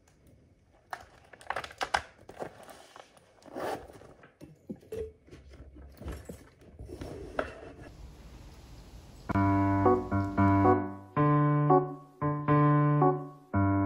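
Light rustling and scattered small knocks as things are handled and packed into a shoulder bag. About nine seconds in, piano background music starts and becomes the loudest sound.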